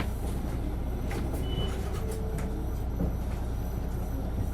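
Isuzu Erga city bus's diesel engine running steadily under way, heard as a deep drone from inside the cabin. There is a brief high beep about one and a half seconds in.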